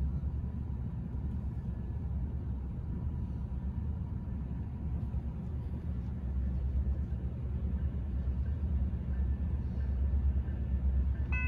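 Low steady rumble of an approaching Norfolk Southern coal train's diesel locomotives, growing slightly louder over the last few seconds.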